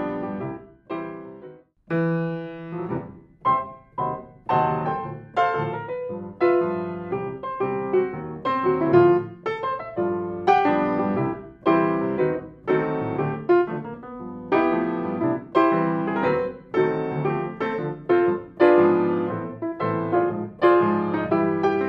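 Grand piano played solo, a continuous stream of struck notes and chords ringing into one another. The playing breaks off briefly about a second and a half in, then resumes with a new phrase. It is picked up close by a stereo pair of Schoeps CMC64 (CMC6 with MK4 cardioid capsule) condenser microphones.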